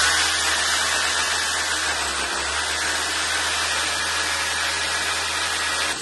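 Handheld electric power tool running steadily: a loud, even whir over a low motor hum, cut off with a click near the end.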